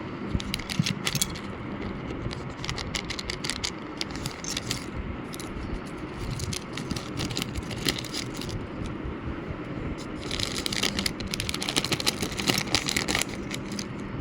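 A small plastic packet being opened and its contents handled: crinkling plastic and small parts rattling and clicking in several bursts, over a steady low background rumble.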